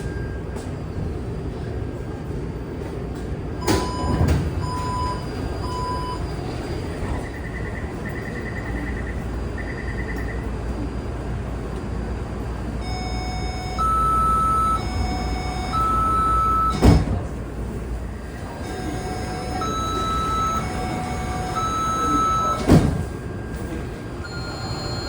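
Door warning signal of a Taipei MRT Series 371 subway car: three short beeps, then three buzzing higher tones, then a two-tone alternating chime that sounds like an ambulance siren, which comes twice. Three sharp knocks of the sliding doors fall between the signals, over a steady low hum of the train.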